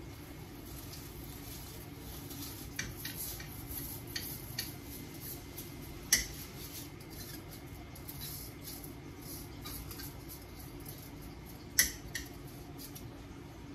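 Washed rice being scraped by hand out of a metal mesh strainer into a pan, with scattered light scrapes and clicks of metal, two of them sharper: one about six seconds in and one near the end. A steady low hum runs underneath.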